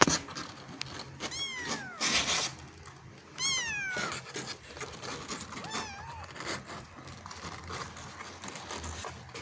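A kitten meowing three times, high calls that fall in pitch, with a short burst of noise after the first meow.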